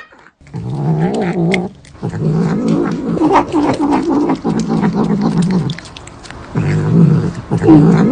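Cat yowling in three long, drawn-out, wavering low calls, the middle one the longest.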